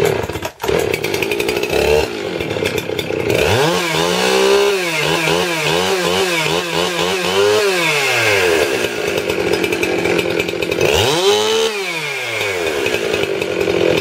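Jonsered 2171 two-stroke chainsaw running, shown as the quieter saw next to an old Sears saw whose spark arrestor has fallen off. It idles, is revved up with repeated throttle blips from about four to eight seconds in, settles, and is revved once more near the end.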